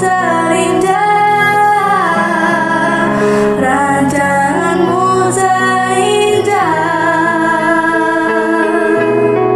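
A girl singing a slow, gliding melody to her own electronic keyboard accompaniment of sustained chords. Near the end the voice stops and the keyboard plays on alone.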